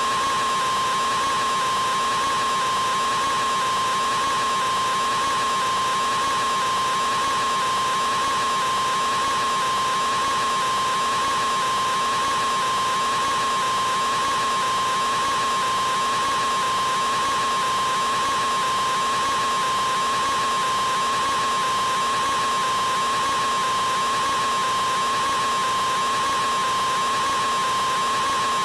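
A man's scream, drawn out artificially into one unbroken, held 'aaaa' at a steady pitch, with no breaks or changes.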